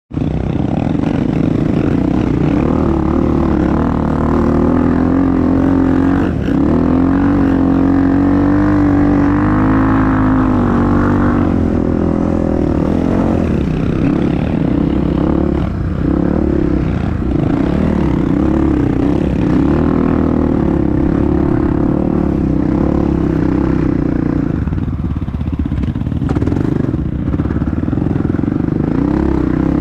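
Honda CRF dirt bike engine running under way, its pitch rising and falling with the throttle.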